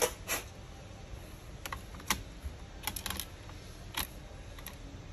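Scattered small sharp clicks and taps of plastic and metal parts as a laptop's processor cooling fan is fitted into place on the motherboard, about eight in five seconds at an uneven pace.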